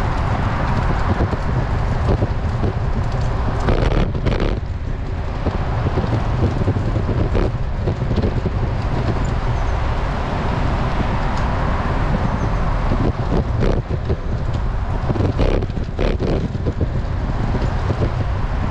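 Wind rushing over a GoPro Hero 9's microphone on a moving road bike, with steady road noise underneath. A few brief knocks or rattles come about four seconds in, around seven seconds, and a cluster near the end.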